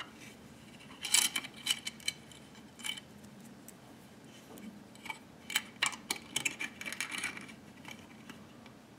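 Light metallic clicks and clinks of a Type 81 rifle's steel hammer and coiled hammer spring being handled and fitted into the receiver, in a cluster about a second in and a longer run of clicks from about five to seven and a half seconds.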